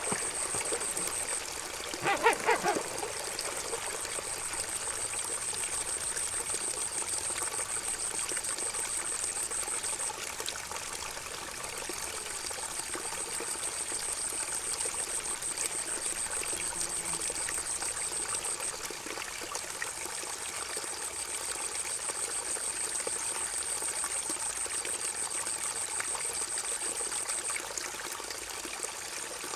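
River water gurgling and trickling steadily. About two seconds in there is a brief louder, pitched burst, and a thin high whine cuts in and out every several seconds.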